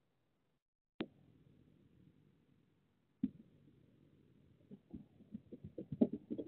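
Quick, irregular soft thumps of cats' paws running and landing on the floor, played at double speed over the faint hiss of a security camera's microphone. A sharp click sounds about a second in and another about three seconds in, before the thumps start.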